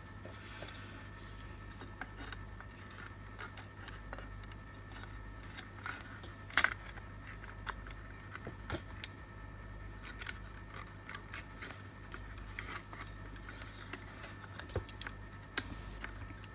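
Scattered light clicks and taps of a plastic security-light housing and circuit board being handled and fitted back together, with two sharper clicks, one about a third of the way in and one near the end, over a steady low hum.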